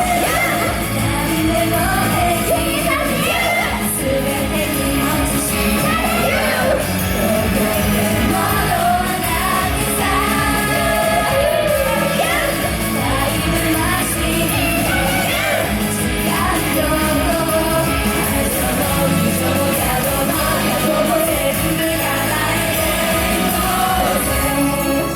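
Live pop music in a concert hall: a song sung over a band backing with a steady beat.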